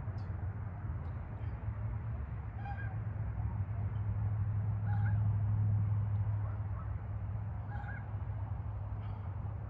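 An animal, likely a bird, giving three short calls a few seconds apart over a loud, steady low rumble.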